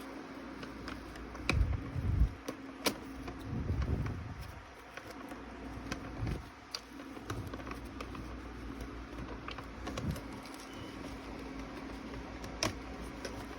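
Hands handling and fitting together the plastic parts of a Santa Claus toy: scattered small clicks and soft knocks, with a sharper click near the end, over a low steady hum.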